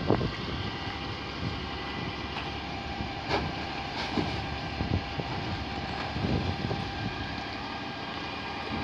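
Rear-loading bin lorry running steadily while its hydraulic bin lift raises and tips wheelie bins, with several clunks and knocks of plastic bins against the lifter from about three seconds in.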